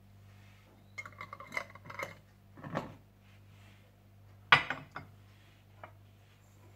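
Metal spoon and kitchenware clinking as cooled tomato ketchup is spooned into a bottle: a quick run of light ringing clinks about a second in, a duller knock near three seconds, then one sharp, loud clink past the middle and a small click after it.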